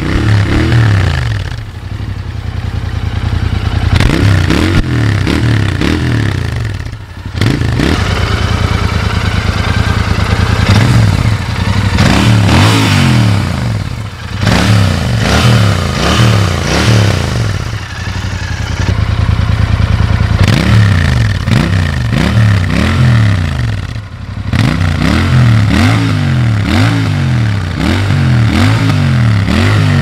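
Royal Enfield Interceptor 650's parallel-twin engine being revved through its exhaust, in repeated quick blips whose pitch rises and falls, with brief settles back toward idle about seven seconds in and again near twenty-four seconds.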